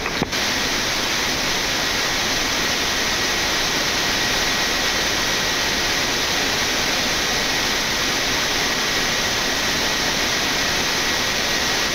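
Steady rushing cockpit noise of a Boeing 787 in the climb after take-off, mostly air streaming over the flight deck, with a faint steady high whine.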